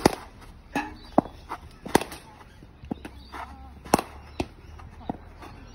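Cricket bat striking balls in a series of sharp cracks, the loudest about every two seconds, with smaller knocks in between as balls land and hit the net.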